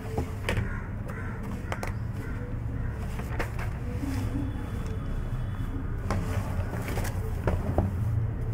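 Pen writing on notebook paper: scattered short scratches and light ticks of the pen tip, over a steady low rumble in the background.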